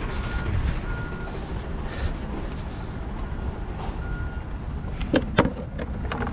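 Heavy truck diesel engine idling steadily, with a few short faint beeps and two sharp knocks about five seconds in.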